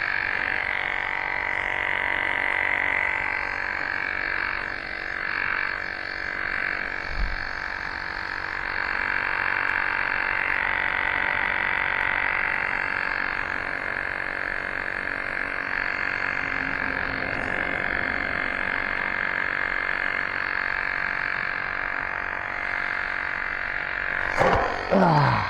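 Electric tire inflator pump running steadily with a rapid pulsing drone while it pumps up a bike tire. Near the end its pitch drops sharply as the motor winds down and stops.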